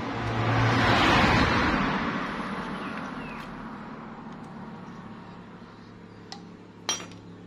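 A passing road vehicle swells and fades over the first few seconds, with a low hum under it. A short, sharp click comes near the end.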